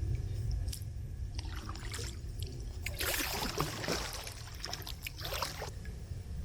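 Kayak paddle strokes splashing and trickling in the water, loudest about three and five seconds in, over a steady low rumble.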